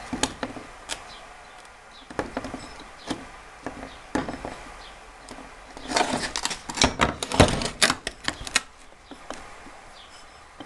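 Irregular clicking and rattling from a belt-driven engine accessory taken off the car and turned by hand, with a quick run of clicks a little after halfway. The clicking comes from worn bearings, which the mechanic decides to replace.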